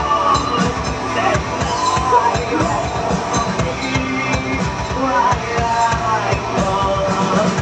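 A rock band playing live: a dense mix of drums and sustained pitched instruments, with melodic lines gliding up and down above them.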